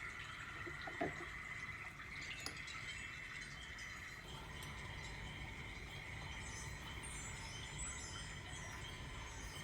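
Faint chimes ringing, with thin tones coming in over the second half, over a steady high-pitched drone and a low hum; one small click about a second in.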